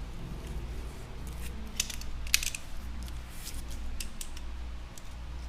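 Adhesive tape strips being handled and laid on a tablet frame: a string of separate small clicks and crinkles, the loudest about two seconds in, over a low steady hum.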